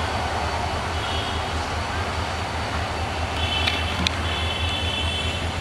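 Diesel locomotive idling with a steady low rumble, with a high trilling sound coming and going over it.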